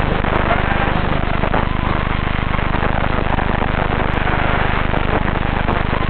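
FPV racing quadcopter's motors picked up by the onboard camera's microphone: a steady harsh buzz, with a faint whine that rises and falls as the throttle changes.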